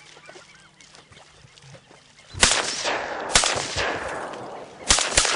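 Four shotgun blasts, the first about two and a half seconds in after a quiet stretch, the last two close together, each trailing off in a long rolling echo.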